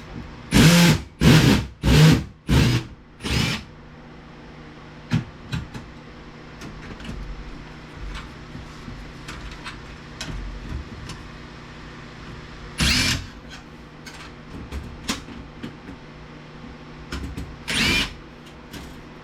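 Power drill/driver spinning in short bursts to back out small screws: five quick pulses in a row, then single pulses about two-thirds of the way through and near the end, with light clicks of parts being handled in between.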